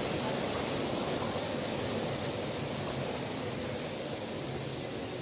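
Steady, even rush of flowing spring water.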